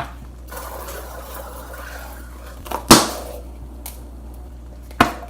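Slime being stirred in a bowl: a soft scraping, then two sharp knocks of the mixing utensil against the bowl, about three seconds in and near the end.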